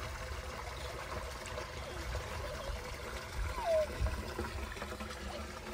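Water trickling steadily from a water bladder's hose into a plastic tub, under a low rumble. About halfway through there is a brief falling call.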